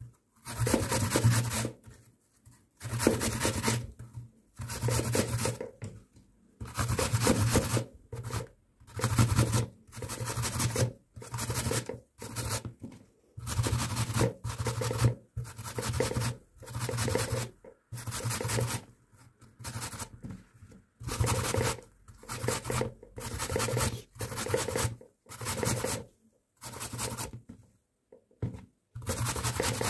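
Peeled apples being grated by hand on a metal box grater: a steady run of scraping strokes, each about a second long, one every one and a half to two seconds, with short pauses between. The strokes get shorter near the end.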